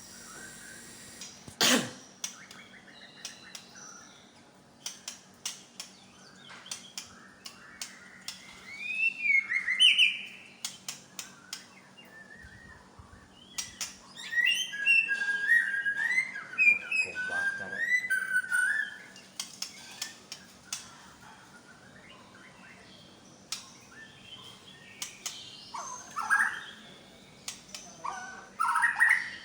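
White-rumped shama (murai batu Medan) singing in several bursts of quick, varied whistled phrases that rise and fall, part of its learned repertoire of songs. Many sharp clicks come between the phrases, the loudest about two seconds in.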